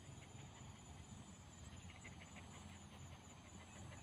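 Faint crunching and rustling of a dog chewing and tugging at dry cut grass, with a run of small clicks around the middle.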